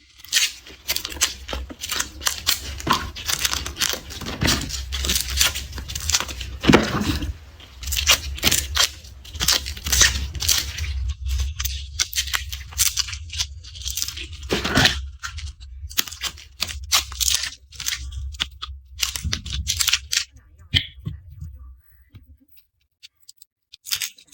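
Papery garlic skins being peeled and torn from cloves by hand close to the microphone: a dense run of crisp crackles and tearing sounds, thinning out near the end. A steady low hum runs underneath and stops a couple of seconds before the end.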